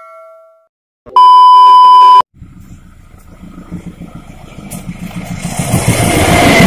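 A loud, steady electronic beep lasting about a second, then an approaching Kutojaya Selatan passenger train whose rumble grows steadily louder.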